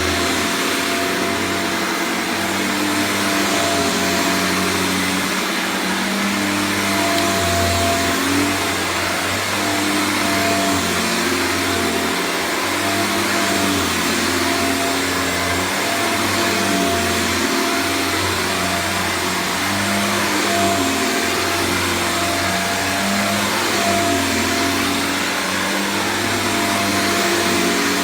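1994 Eureka Excalibur upright vacuum cleaner running on its power clean setting: a steady motor whine over a loud rush of air, with its lower tones shifting up and down throughout.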